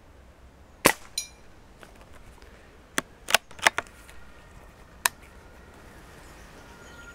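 A single shot from a Hämmerli 850 AirMagnum CO2-powered .177 bolt-action air rifle: a sharp crack, followed about a third of a second later by a short metallic ring of the pellet striking a steel ringer target. A few seconds later comes a quick series of clicks as the rifle's bolt is worked to chamber the next pellet.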